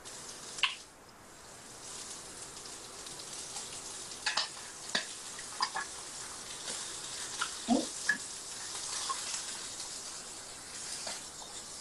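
Salmon fillets sizzling in oil in a hot skillet, a steady hiss that builds over the first couple of seconds, with several sharp clicks and taps of metal tongs against the pan.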